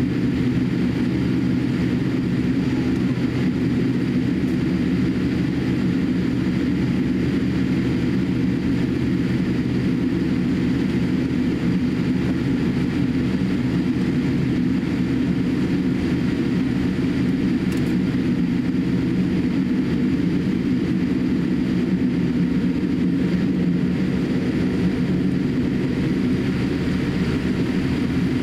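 Cabin noise of a Boeing 787-8 taxiing: a steady low drone from its GEnx-1B engines at taxi thrust, with no change in level.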